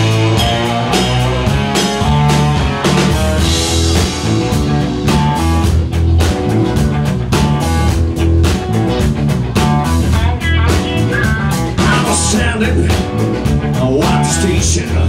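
Live blues-rock band playing: electric guitars, electric bass and drum kit, with a steady drum beat throughout.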